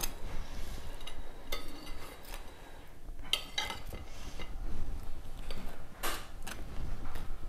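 Table knife spreading jam over slices of toast on a plate: the blade scrapes across the dry toast, with a few light clicks of knife against plate.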